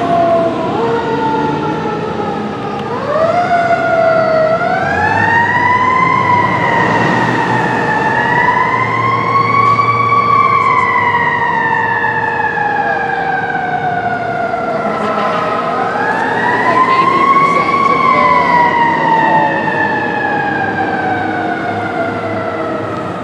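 2003 Seagrave Marauder fire engine's siren wailing on an emergency response. It rises and falls in long, uneven sweeps: quick climbs of about two seconds, each followed by a slow fall lasting several seconds.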